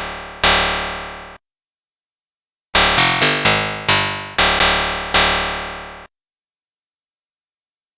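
Piano-like keyboard chords, sampled or synthesized: two loud struck chords left to ring and fade, a pause of dead silence, then a quick run of about eight struck chords that stops abruptly about six seconds in.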